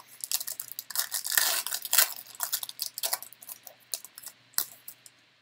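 Foil trading card pack wrapper crinkling and crackling as it is torn open and the stack of cards is slid out, with the densest, loudest crinkling around one to two seconds in.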